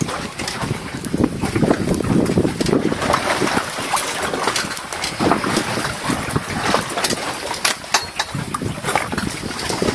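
Wind buffeting the microphone on an open boat at sea: an uneven, gusty rush with scattered small knocks and clicks throughout.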